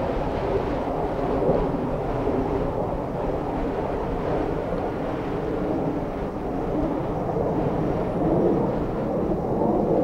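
Steady, loud rumble of a wind-driven wildfire burning through pine trees and brush, swelling slightly a couple of times.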